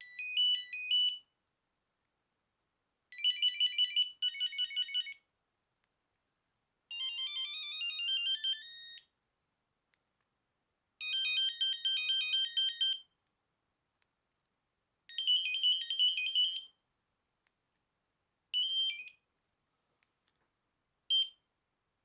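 Nokia 8310 mobile phone playing short previews of its built-in ringing tones one after another as the menu is scrolled: seven brief beeping tunes with gaps between them. The third climbs steadily upward in pitch, and the last two are cut off after a fraction of a second.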